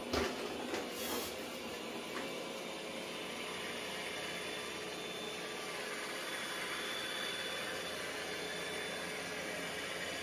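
Roborock S7 MaxV Ultra robot vacuum-mop pulling off its dock and turning around to back in for mop-pad washing: a steady whirring hiss, with a couple of knocks in the first second or so.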